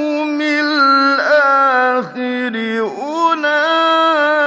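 A man chanting Quran recitation slowly and melodically, holding long drawn-out notes with ornamented turns in pitch and a brief pause about two seconds in.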